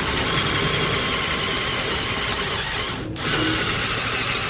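Drill spinning a 1/4-inch bit, cutting a shallow pilot hole for a screw counterbore in a Chevy 292 cylinder head. A steady whir, briefly broken about three seconds in.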